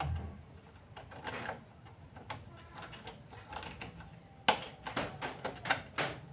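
Irregular sharp clicks and taps, with one loud click about four and a half seconds in and a quick run of clicks just after it.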